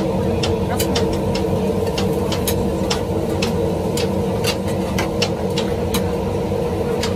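A steady engine hum, with a few held tones, overlaid by scattered sharp clicks a few times a second.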